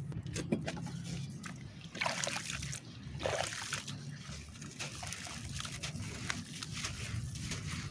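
Hands squeezing and stirring soft wet mud in a plastic tub of muddy water: irregular splashing, sloshing and dripping, with louder splashes about two and three seconds in.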